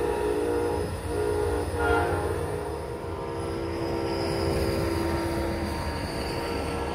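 Amtrak train horn sounding, several tones at once: a couple of short blasts, then a long one that slowly fades, over the low rumble of the train pulling away.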